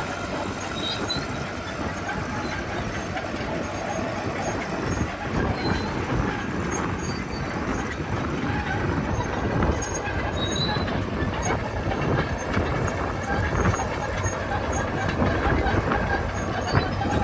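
Komatsu D61EX crawler dozer working, its diesel engine running steadily while the steel tracks clank and give a few faint squeaks.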